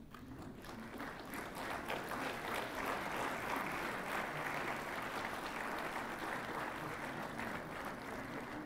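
Audience applauding, the clapping building up over the first second or two and then holding steady.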